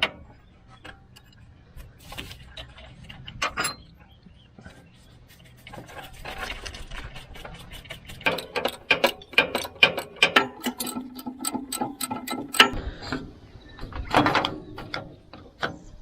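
Hand ratchet wrench clicking in quick runs, with scattered metal clinks from tools and parts, as bolts are done up.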